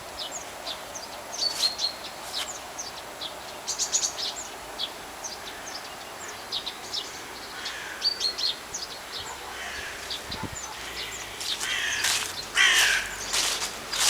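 Small birds chirping at random throughout, with a few louder, harsher calls from a bigger bird about twelve seconds in.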